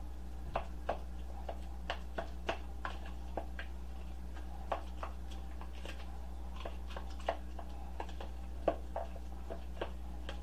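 A fork mashing and folding soft potato filling in a mixing bowl, with irregular light clicks and taps of the fork against the bowl, over a steady low hum.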